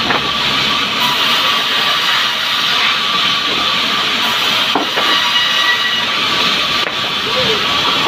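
Sawmill band saw running: a loud, steady hiss with a thin high whine, and a brief knock about five seconds in.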